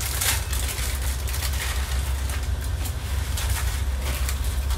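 Indomie instant-noodle plastic packet crinkling and rustling in the hands as it is torn open and handled, over a steady low rumble.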